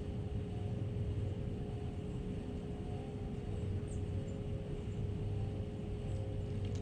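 Steady low rumble of distant engine noise, with a constant hum over it.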